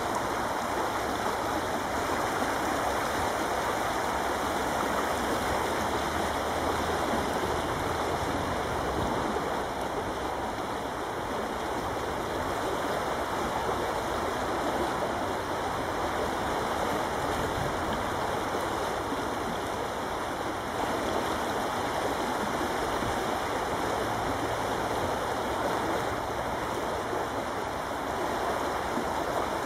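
River water rushing steadily, a churning, foam-flecked current.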